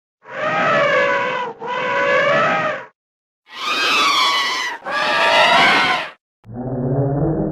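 Elephant trumpet sound effect played five times in a row, each call about a second and a half long: twice at one pitch, twice pitched higher and brighter, then once pitched much lower and muffled.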